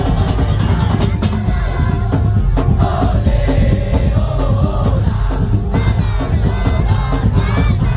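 Madurese tong-tong (daul) ensemble playing: heavy drums and dense percussion with a wavering melody line over them.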